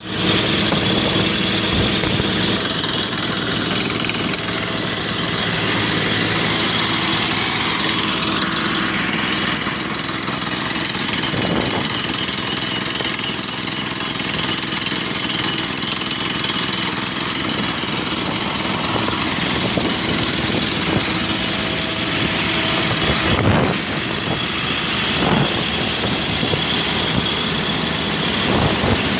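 Borewell drilling rig on a backhoe running: its compressed-air rock drill works down the hole while air blasts dust and cuttings out, a steady loud hiss over engine noise. A few brief knocks and a short dip in level come a little past two-thirds of the way through.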